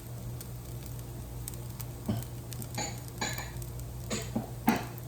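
Egg fried rice sizzling faintly in the pan, with about five sharp clatters of kitchenware in the second half, the loudest near the end.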